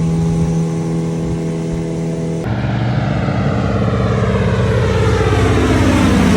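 A loud engine running steadily at an even pitch, starting abruptly. About two and a half seconds in the sound cuts to another take, where a hiss over the engine sweeps downward in pitch for several seconds.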